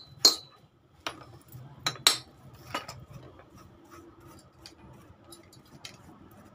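A last light hammer tap on the motorcycle's cylinder block rings out just after the start, then metal knocks about two seconds in and light clinking and rubbing as engine parts are handled.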